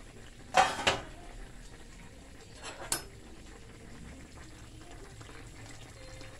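Stainless steel pot lid clanking as it is lifted off a pan and set down on the stovetop: a loud ringing metal clank about half a second in and a lighter one near three seconds. Between the clanks the pan of stewed fish simmers faintly.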